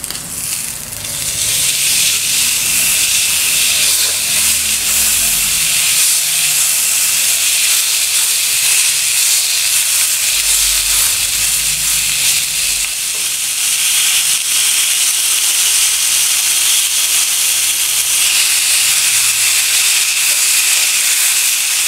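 Beef tenderloin steak sizzling in a hot grill pan, a steady loud high-pitched hiss. The sizzle swells about a second in as the steak is turned onto its raw side.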